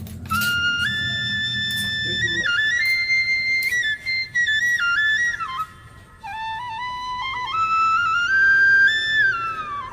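Background music: a solo flute plays a melody that moves in steps and slides down near the end. A low steady noise sits underneath for the first two seconds or so and stops suddenly.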